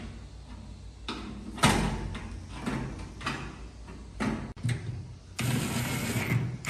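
A series of sharp knocks and taps with a stretch of steady scraping about two-thirds of the way through, typical of metal appliance parts being handled and worked.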